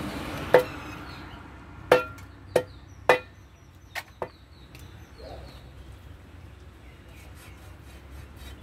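Heavy curved cleaver chopping through a magura (walking catfish) onto a wooden log chopping block: six sharp chops in the first four seconds, the last two lighter, then quieter handling of the fish.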